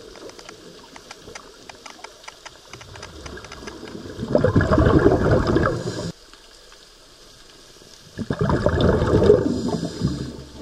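Exhaled air bubbling out of a scuba regulator, heard underwater: two rushing bursts of about two seconds each, four seconds apart, with faint scattered clicks before the first.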